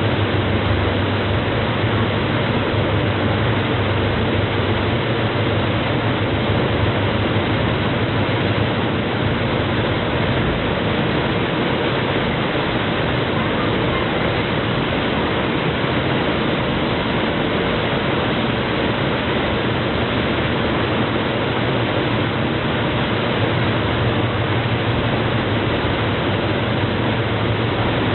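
Steady rushing noise of boat engines and water, with a low hum underneath, unchanging in level.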